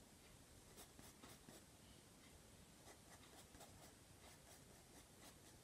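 Faint scratching of a graphite pencil on paper, drawing quick short strokes for eyebrow hairs, a few light scratches a second.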